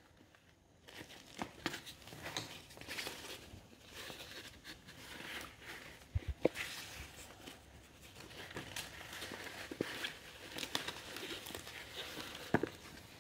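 Faint rustling of a black fabric posture brace and its straps being handled and unfolded, with a few soft knocks.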